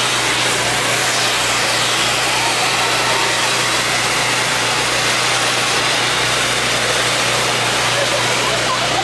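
Several hand-held tube fireworks (tezutsu hanabi) spraying fountains of sparks, making a steady, unbroken rushing hiss.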